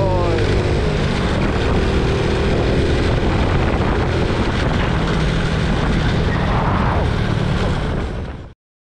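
Honda Innova 125 motorbike under way: the small single-cylinder engine runs steadily under a heavy rush of wind noise. The sound cuts off abruptly near the end.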